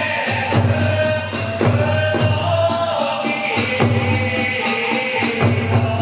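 Kagura music: drum beats and small clashing hand cymbals in a steady, fast rhythm, with a sustained melodic line gliding over it.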